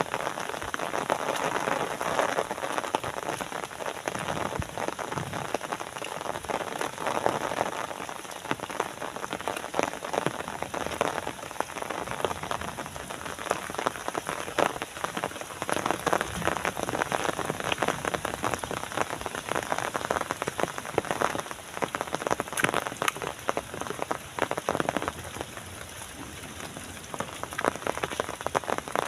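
Steady rainfall, a dense mass of individual drop strikes over a continuous hiss.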